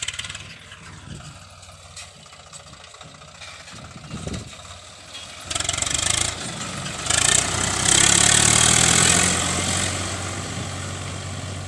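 Swaraj tractor's diesel engine running close by, coming in loud about halfway through and loudest as the tractor pulls its trolley across soft, muddy field ground.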